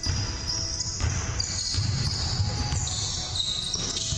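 A basketball bouncing repeatedly on a hardwood gym floor as it is dribbled, with high sneaker squeaks from players cutting on the court.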